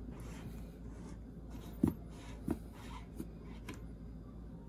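Soft rubbing of threads as a threaded cylindrical part is unscrewed by hand from the receiver of an AEA 9mm Terminator PCP air rifle, with a handful of light clicks, the loudest about two seconds in.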